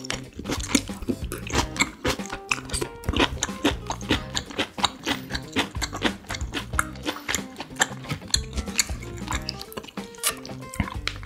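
Background music, with close-miked chewing and mouth sounds from eating chunks of beef steak and bell pepper.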